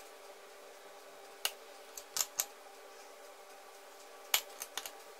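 Metal spoon clicking and tapping while curd filling is scooped onto dough rounds on a baking tray: a few short, light clicks in two small clusters, about a second and a half in and again about four and a half seconds in, over a faint steady hum.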